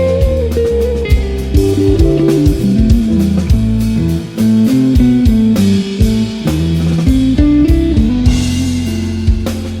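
Background music: electric guitar with bass and a drum kit keeping a steady beat.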